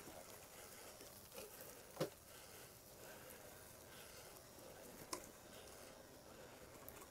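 Faint, steady rustle of an e-mountain bike's tyres rolling over a leaf-covered dirt trail. A couple of sharp clicks or knocks stand out, one about two seconds in and one about five seconds in.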